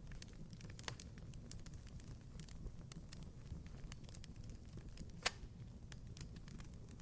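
Wood fire crackling in a fireplace: scattered small pops, one louder snap about five seconds in, over a low steady rumble.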